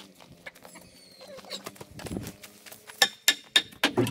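New Holland compact tractor's engine idling with a steady hum. About three seconds in, a quick run of sharp knocks starts, roughly three a second, as a board is worked loose under the shed.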